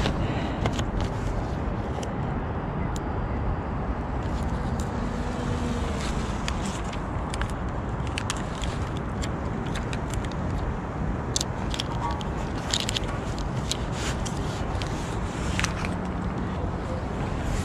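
Wind buffeting the microphone, a steady low rush, with scattered short clicks and taps throughout.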